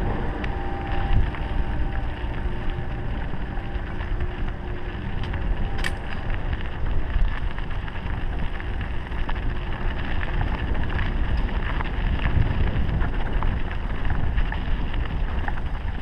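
Mountain bike riding down a gravel and dirt track: wind rumbling on the microphone over the crunch and rattle of tyres on the gravel, with one sharp click about six seconds in.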